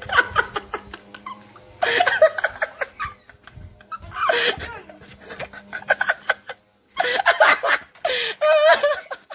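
People laughing hard in several breathy bursts with short gaps, out of breath from laughing.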